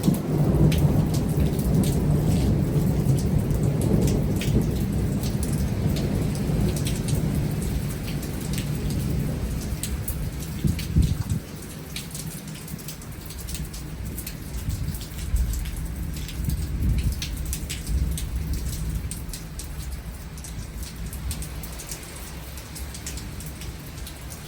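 Heavy rain with thunder rumbling: a long low roll that dies away about halfway through, with a weaker rumble later. Sharp drop ticks sound throughout.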